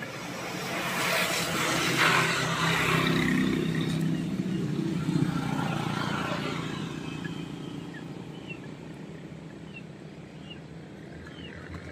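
A motor vehicle passing by, its engine growing louder over the first few seconds and then fading away.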